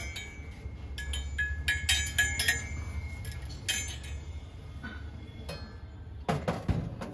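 Brass utensils clinking and knocking against one another as they are handled, several strikes leaving a short metallic ring. A couple of heavier, duller knocks come near the end.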